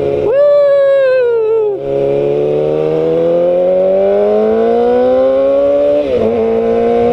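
Yamaha R6 sport bike's inline-four engine accelerating hard through the gears. The revs climb in long pulls and drop sharply at gear changes about two seconds in and again about six seconds in.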